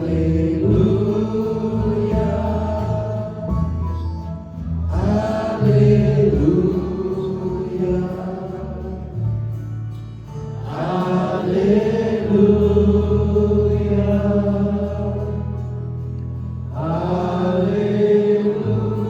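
Worship singing by a group of voices in long, slow phrases that each begin about every six seconds and hold their notes, over a sustained instrumental backing.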